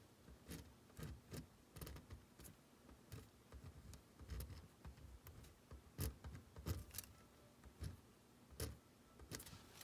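Faint, irregular taps and clicks, about one or two a second, from writing out a chemical structure on the page.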